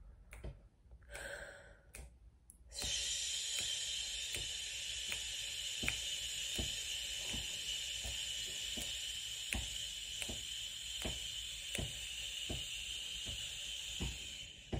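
Finger snaps keeping a steady beat, about one and a half per second, over a short breath in and then a long, steady 'shh' exhale held for about 16 snaps: a diaphragmatic breath-control exercise. The hiss cuts off just before the end.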